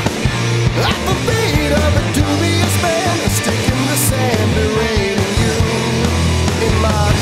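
Hard rock band with progressive leanings playing live: a full band with drums, bass and guitars in a dense, steady instrumental texture.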